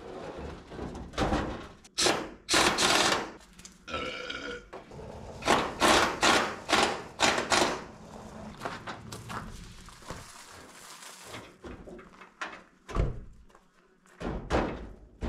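Irregular clunks, knocks and scraping of sheet metal as a replacement hood is handled and fitted onto a Chevy K5 Blazer. The loudest bursts come about two to three seconds in and again around six to seven and a half seconds in.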